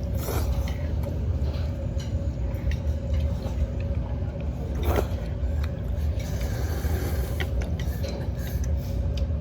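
Steady low mechanical rumble with a faint steady hum, and a few light clicks, the clearest about five seconds in.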